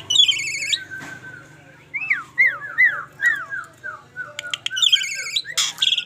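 Asian pied myna (jalak suren) singing: a loud, high-pitched rattling phrase near the start and again near the end, with a run of quick falling whistles in between.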